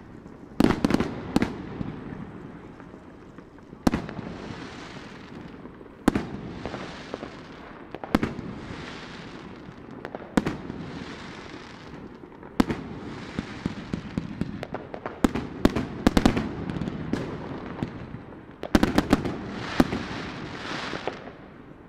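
Fireworks exploding all around: sharp bangs about every two seconds, each trailed by about a second of crackling hiss, with quick clusters of several bangs in the second half.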